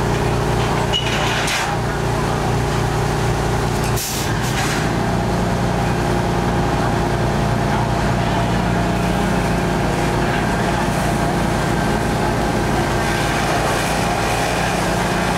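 Fire engine's diesel engine running steadily at high revs to drive its pump. About four seconds in there is a short burst of hiss, after which the engine's tone shifts slightly.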